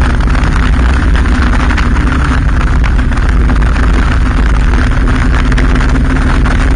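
Motorcycle engine running steadily at cruising speed, mixed with wind rushing over the bike-mounted camera's microphone: a loud, constant low rumble.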